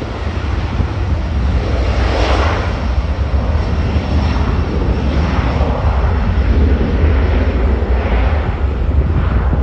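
Boeing 737 twin jet engines at takeoff thrust: a loud, continuous roar with a deep rumble as the airliner rolls down the runway and lifts off.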